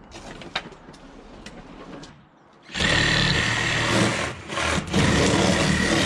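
A few light knocks of wooden fence panels being handled, then about three seconds in a power saw starts and runs steadily, cutting up an old wooden fence panel, easing off twice for a moment.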